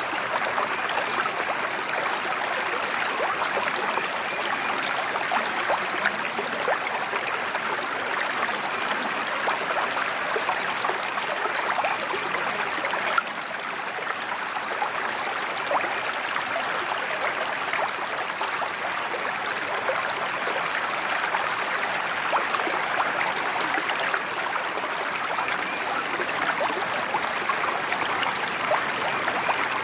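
Water pouring steadily from a small spillway waterfall into a koi pond, a constant splashing rush that is briefly a little quieter about halfway through.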